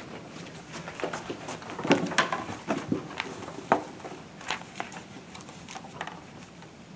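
Scattered light knocks and rustles of children sitting down at a table and handling books, with two louder knocks about two seconds in and just under four seconds in.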